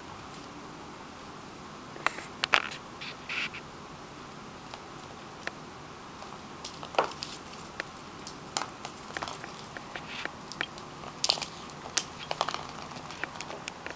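Champagne cork being batted and skittering across a hard wooden floor by a kitten, with the kitten's paws scrabbling: irregular light clicks and taps in scattered flurries, busiest in the second half.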